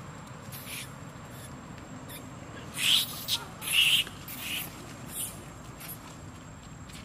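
Long-tailed macaques giving a quick run of short, shrill screams, about five or six in a row starting nearly three seconds in, the loudest two close together near the start, typical of a squabble or chase among the troop.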